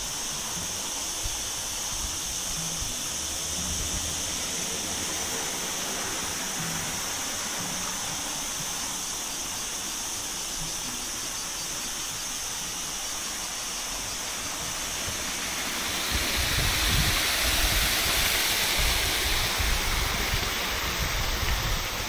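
Steady outdoor wind hiss. From about three-quarters of the way in, gusts buffet the microphone with irregular low rumbles and the hiss grows louder.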